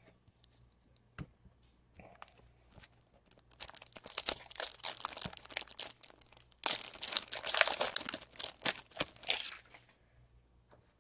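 A trading-card pack's plastic wrapper being torn open and crinkled, in two loud stretches of crackling about a third of the way in and again past the middle.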